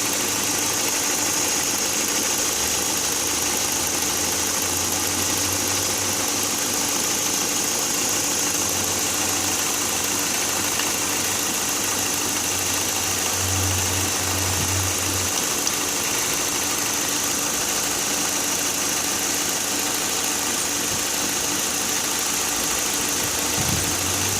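A 2001 Hyundai Accent's four-cylinder engine idling steadily during an injector check for a reported misfire.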